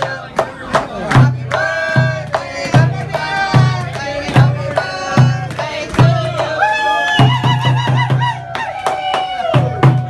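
A rope-laced taiko-style barrel drum beaten in a steady beat of a little more than one stroke a second, with a quick run of strokes about three-quarters of the way through. Several voices sing together over it, with hand clapping.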